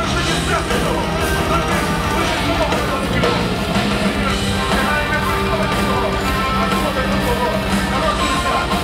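Live black metal band playing a loud, dense passage: distorted electric guitars over keyboards and fast drumming, heard from within the audience.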